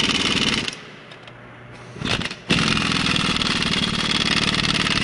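A 3/4-inch-drive impact wrench hammering on a diesel cylinder head bolt in two long bursts, stopping under a second in and starting again about two and a half seconds in, with a short clatter in the gap. The bolt is being driven with the impact gun rather than a torque wrench, and the mechanic reckons it didn't turn far enough to reach torque.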